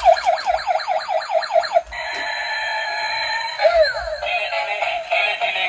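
Toy police excavator robot playing electronic sound effects: about two seconds of rapid rising siren chirps, roughly five a second, then a steady buzzing electronic tone, a falling swoop and quick warbling beeps.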